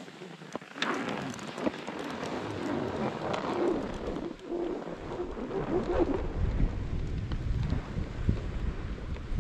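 Skis hissing and scraping through snow, with scattered clicks and clatters of the gear, and wind buffeting the microphone as a low rumble from about two-thirds of the way in.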